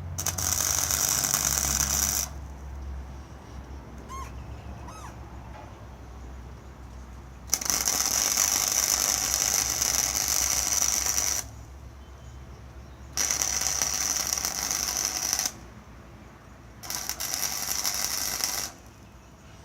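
Arc welding on a steel frame: four separate runs of sharp, steady crackling and sizzling, each lasting two to four seconds, with short pauses between as the welder stops and restarts.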